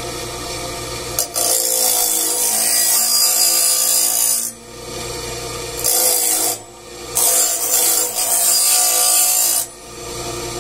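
Bench grinder motor running steadily while its abrasive wheel grinds the steel teeth of a sawmill band blade, a harsh hissing scrape in three passes of a few seconds each. Between passes the grinding stops briefly and only the motor's hum is heard.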